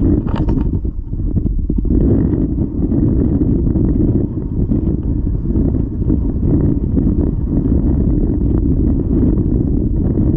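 Wind buffeting the camera microphone: a loud, steady, low rumble, with a few short knocks in the first second.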